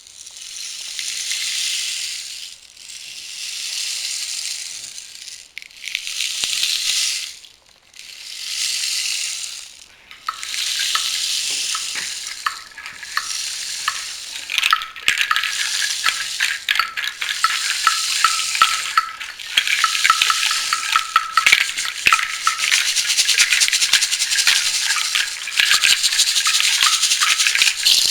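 Rain stick tilted back and forth to imitate rain. Its falling beads hiss in four separate swells of about two seconds each, then keep up a continuous, denser patter full of small clicks.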